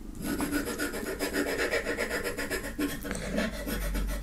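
Silver scratch-off coating on a cardboard card being scraped off with a thin pointed tool: quick, steady back-and-forth scratching strokes.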